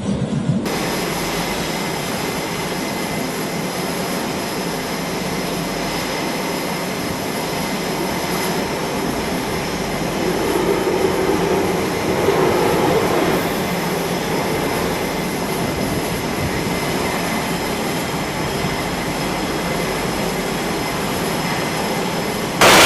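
Jet engines running steadily: a rushing noise with a thin high whine over it, swelling slightly around the middle.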